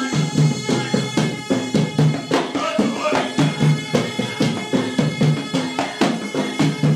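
A reed pipe plays a sustained, reedy melody over hand-beaten double-headed barrel drums keeping a steady, quick beat.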